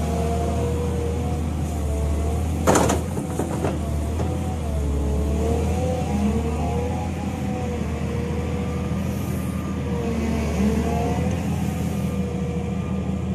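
Volvo EW160 wheeled excavator's diesel engine running steadily under hydraulic load while it works a Herder mowing basket, with a pitched hum that wavers up and down. A sharp clack about three seconds in.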